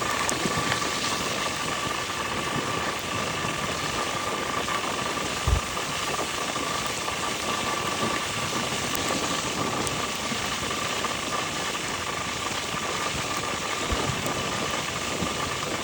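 Motorcycle engine running steadily under a continuous hiss of rain, with a thin steady tone throughout and a single low thump about five and a half seconds in.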